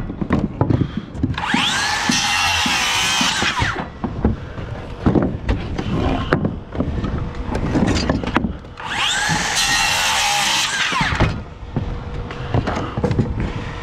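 A DeWalt circular saw cutting through wooden framing blocks twice. Each cut is a high whine that spins up, runs about two seconds through the wood, and winds down. Knocks and clatter come between the cuts.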